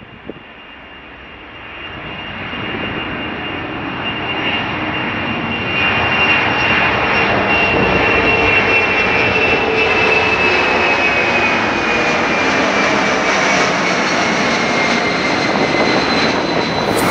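Four turbofan engines of a Boeing C-17A Globemaster III climbing out after takeoff. The jet noise grows louder over the first six seconds or so as the aircraft comes closer, then holds steady. Over it a high whine slowly falls in pitch as the aircraft passes.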